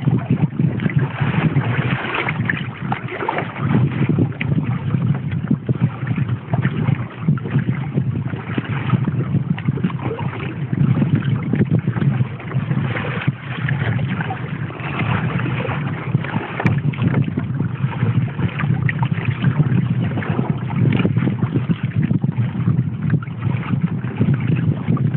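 Wind buffeting the microphone over water swishing and lapping along the hull of a sailing trimaran kayak under way, rising and falling in gusts.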